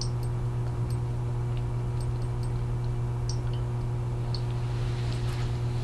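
Steady low electrical hum with a few faint, scattered ticks.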